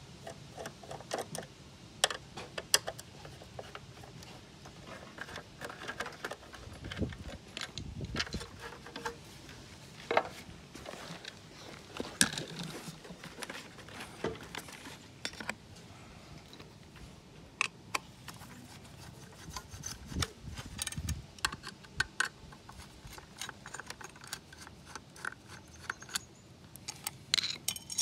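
Hands working in an electric scooter's battery compartment: scattered clicks, knocks and rattles of the plastic deck, wires and connectors being handled, with a few duller thumps.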